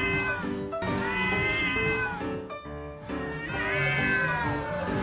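A domestic cat yowling in long, drawn-out meows, with a break in the middle, over background music.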